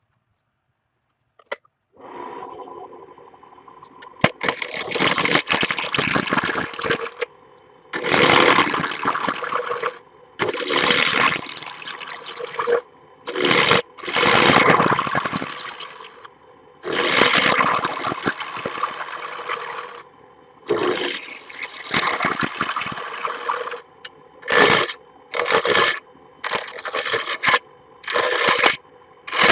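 A woodworking power tool starts about two seconds in and keeps up a steady motor hum. Over the hum come repeated loud, noisy bursts of it working the wood, each from under a second to a few seconds long, coming faster and shorter near the end.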